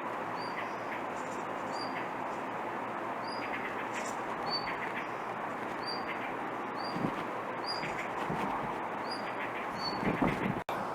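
Blue rock thrush repeating short, high call notes, about one a second, calling steadily rather than singing a full song, over a steady background hiss. A few low thumps come near the end.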